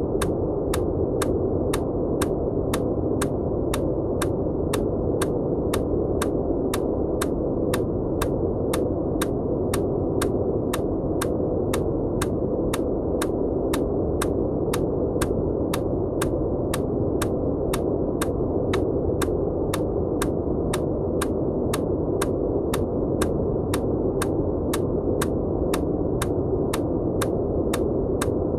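Steady rushing noise, deep rather than hissy, with a sharp click repeating evenly about twice a second: an EMDR bilateral-stimulation click track laid over the noise.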